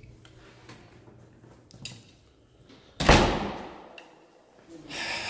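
A heavy door shutting with one loud thud about three seconds in, its sound dying away over about a second in a hard-walled hallway.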